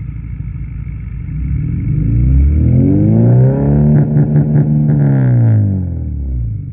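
Car engine with a Skunk2 Alpha header and aftermarket exhaust, idling, then revved up over about two seconds, held high for a couple of seconds with some crackle, and let fall back to idle near the end.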